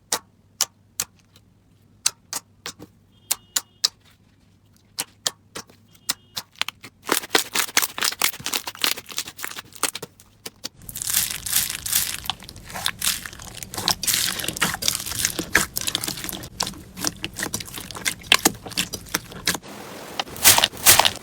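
Slime being pressed and worked by hand. For the first third it gives sharp, separate clicks and pops. Then it turns into dense crackling that gets louder about halfway through.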